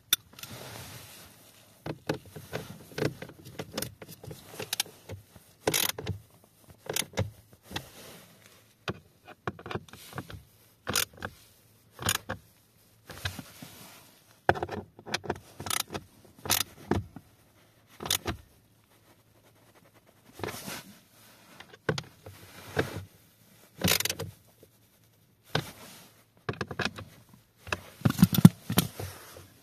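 Socket ratchet clicking in short runs, with clinks and knocks of hand tools against the plastic of a car's footwell, as the screws of the blower motor housing are worked.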